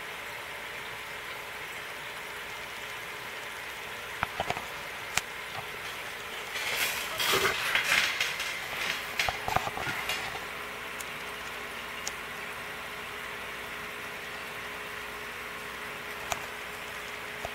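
Steady fizzing hiss of air bubbling up through an aquarium sponge filter, with a faint steady hum underneath. A few sharp clicks, then a louder crackling stretch in the middle that lasts a few seconds.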